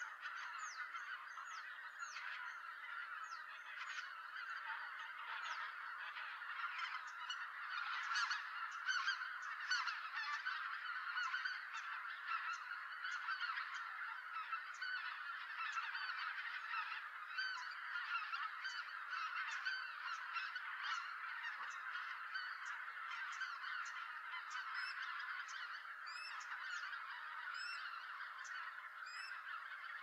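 A large flock of greater white-fronted geese calling as they come in to roost: a dense, unbroken chorus of many overlapping honking calls, a little louder about a third of the way in.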